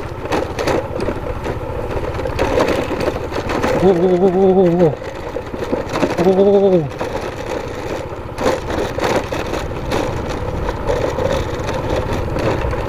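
Trail motorcycle engine running at a steady, low speed while riding over a badly broken-up road, with knocks and rattles from the bumps. Twice, about four and six seconds in, a man's voice makes a drawn-out sound.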